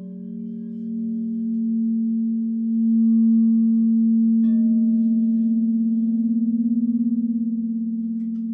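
Crystal singing bowls ringing in long overlapping tones, the low tone swelling louder over the first few seconds. About four and a half seconds in, another bowl is struck and adds a higher note, and the blended tones waver with a slow pulse.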